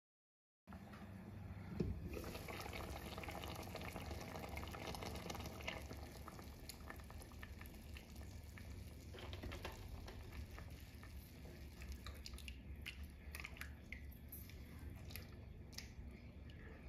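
Chicken gravy simmering in a pot, bubbling and dripping steadily over a low hum, with a single knock about two seconds in. Toward the end, wet clicks and squelches as the gravy is stirred with a silicone spatula.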